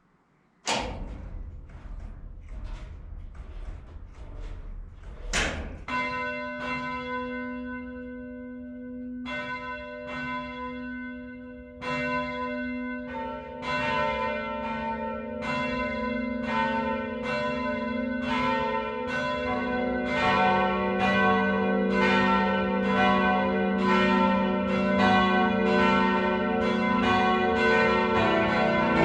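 Four church bells, tuned e, f-sharp, a and b, the oldest cast in 1475, starting a full peal. A low rumble and a series of knocks come first; the first bell strikes about five seconds in, and the other bells join one after another every several seconds, so the ringing grows fuller and louder.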